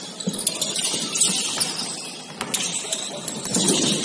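Basketball game noise on an indoor court: scattered high squeaks, typical of sneakers on the floor, and a few sharp knocks over the hum of the hall.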